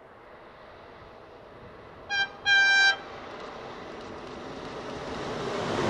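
Alstom ETR 104 Trenitalia Pop electric train sounding its horn twice, a short toot and then a longer one, each on a single tone, while the rumble of the approaching train grows steadily louder.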